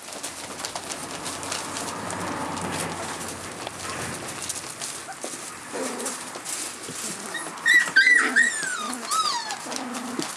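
Litter of month-old rough collie puppies giving high, squeaky yips and whines, most of them in a cluster about three quarters of the way through, over the rustle of paws scrambling on the floor pads; the puppies are in an excited state.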